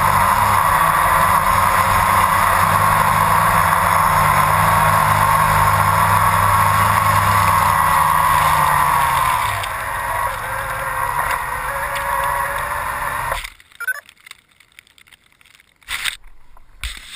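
Blade 350 QX3 quadcopter's electric motors and propellers whining steadily, still spinning after it has come down in grass. About ten seconds in they drop in pitch and level, run unevenly for a few seconds, then cut off abruptly, leaving only faint rustles and knocks.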